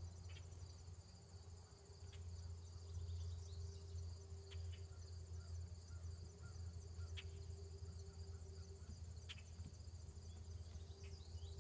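Insects trilling steadily in a high, pulsing chorus over a low steady hum, with a few faint clicks scattered through.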